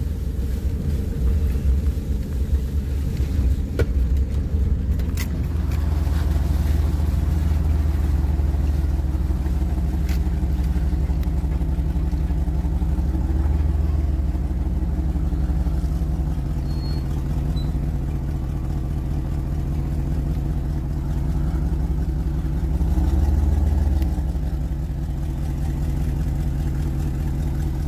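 Truck engine and drivetrain running at low speed, heard from inside the cab as a steady low rumble. Two faint clicks come about four and five seconds in, and the engine swells briefly about four seconds before the end.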